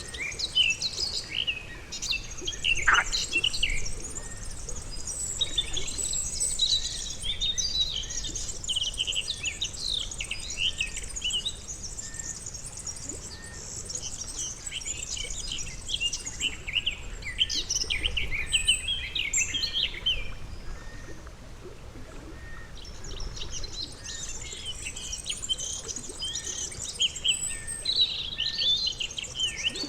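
Outdoor pond ambience dominated by songbirds chirping and trilling in dense, overlapping bursts that ebb and return. A faint short note repeats about once a second underneath.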